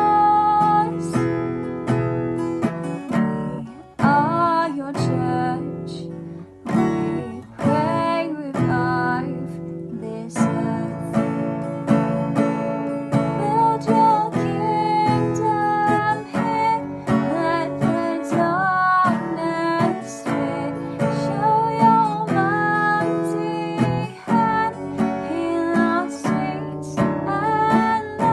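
Worship song with strummed acoustic guitar and a singer carrying the melody.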